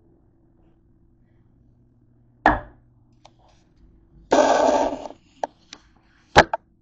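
Handling noise from a camera being moved and set down on a table: a sharp knock, a short scraping rustle, a couple of light clicks, then a second sharp knock near the end as it comes to rest.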